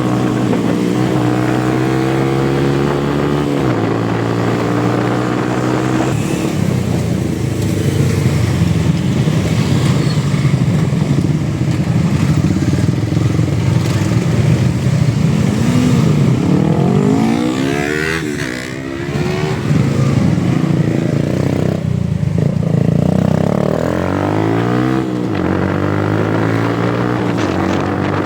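Motorcycle engine under way: it accelerates, steps down in pitch at gear changes, and rises again in several revs.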